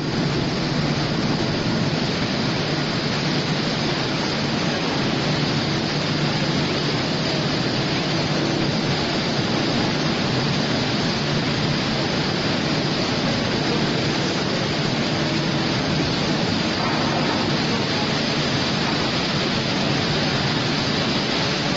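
Steady industrial roar of steel mill machinery on a billet cooling bed, an even noise with a low hum under it and no distinct clanks.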